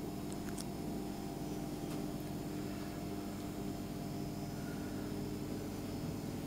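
Homemade egg incubator converted from a refrigerator, running with a steady hum, with a few faint clicks in the first two seconds.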